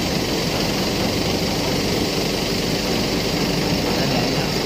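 Steady drone of workshop machinery running, even and unchanging.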